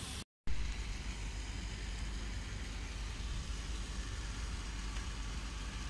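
Steady background noise with a low rumble, broken by a brief dead-silent gap a quarter second in.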